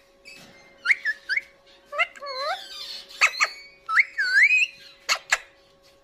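Alexandrine parakeet giving short gliding whistles and chatter that bend up and down in pitch, with a few sharp clicks between them.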